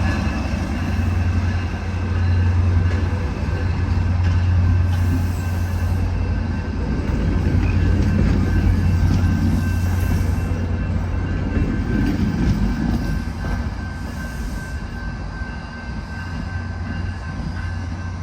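Rail Runner commuter train pulling away, its EMD-powered MP36PH-3C diesel-electric locomotive giving a steady low drone over rolling wheel and rail noise. The sound grows a little quieter over the last few seconds.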